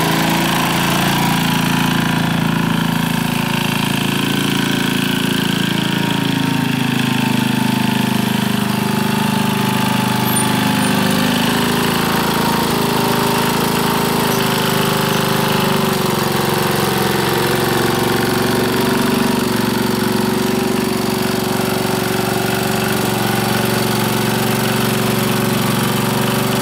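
1959 David Bradley Suburban garden tractor's small engine running steadily on a replacement carburetor, its pitch dipping and rising a little a few times as the tractor is driven.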